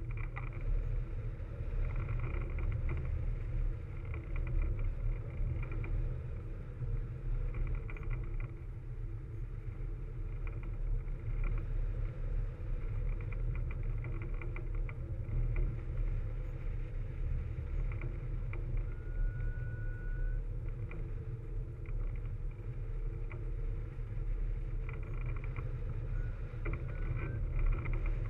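Airflow rushing over a wing-mounted camera's microphone in hang glider flight: a steady low wind rumble with gusty buffeting.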